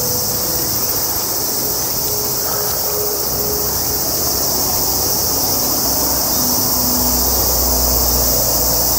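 Steady, high-pitched chorus of summer insects droning without a break. A low rumble underneath grows stronger over the last two seconds.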